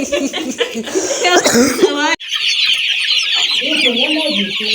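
Chickens clucking, with a longer rising squawk about a second and a half in. After an abrupt cut about two seconds in comes a dense chorus of high-pitched peeping from many chicks over lower clucking.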